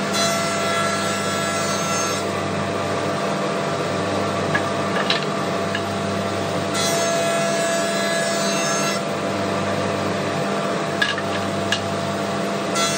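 Planer/jointer running with a steady machine hum while timber is fed over its cutterhead. A harsher, brighter cutting noise comes through while the board is being cut: for about the first two seconds, again for about two seconds midway, and briefly at the end. A few light knocks fall in between as the push stick is handled.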